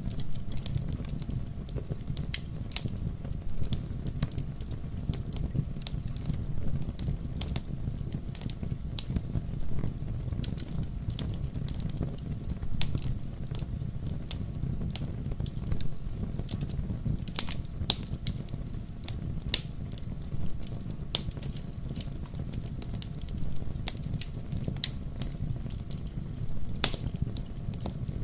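Wood campfire burning, crackling with frequent sharp pops and a few louder snaps over a steady low rumble.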